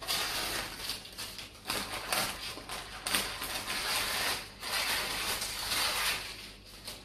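Scissors snipping through baking parchment in a run of irregular cuts, the stiff paper crinkling as it is handled.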